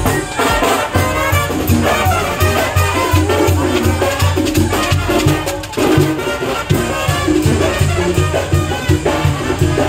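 A marching brass band playing a lively Latin-style tune, with trumpets carrying the melody over a steady bass beat.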